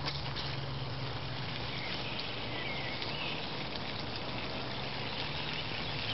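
Water running steadily from a garden hose into a fabric dog paddling pool, over a low steady hum.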